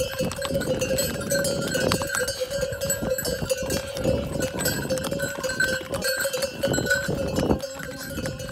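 Bells on the trekking ponies' harnesses ringing and clanking steadily as the ponies walk, with many small clinks throughout.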